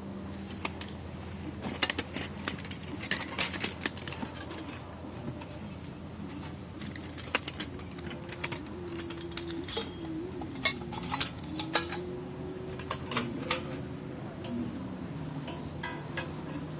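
Metal skewers clinking and tapping against each other as they are handled and set across a fire pit, in scattered sharp clicks, with several quick runs of clicks.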